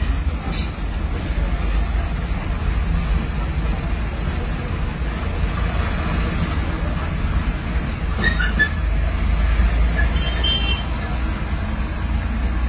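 Steady low rumble with a faint hiss, and a few faint short sounds about two-thirds of the way through.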